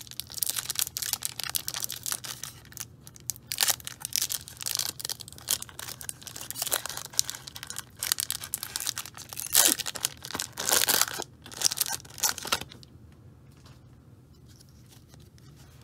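A foil wrapper on a 1994 Fleer Ultra football card pack being torn open and crinkled by hand: a run of crackling rips and rustles that stops about three seconds before the end.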